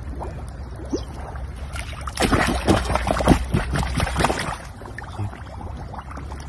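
Hands splashing and sloshing in shallow muddy water as they dig into an eel's burrow, with a dense run of splashes from about two seconds in to about four and a half.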